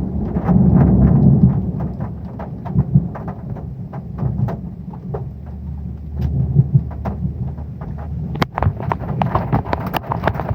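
Heavy rain drumming on a metal roof: a dense patter of sharp drop hits over a steady low rumble that swells about a second in and again around six seconds.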